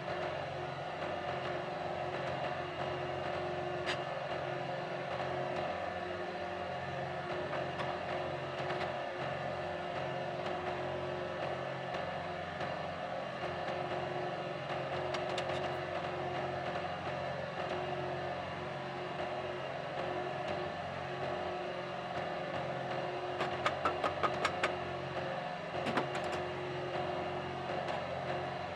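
Steady mechanical hum with several steady tones. A little before the end comes a quick run of about six sharp clicks or taps, then one more.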